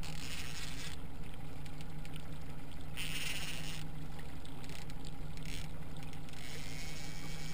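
A 115 hp outboard motor running steadily at low speed, a constant low hum, with water churning and splashing at the stern. Two short bursts of hiss come near the start and about three seconds in.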